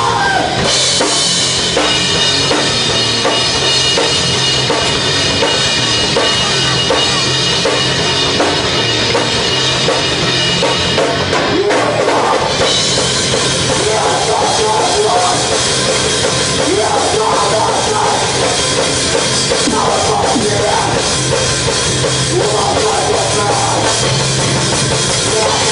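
Live rock band playing loudly: a drum kit with electric guitar and bass guitar.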